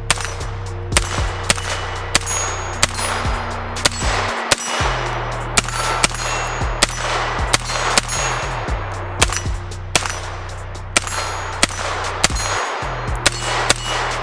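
BattleArms XIPHOS 9, a 9mm direct-blowback AR-style pistol, fired shot after shot at an irregular pace of roughly two a second, over background music with a low bass line.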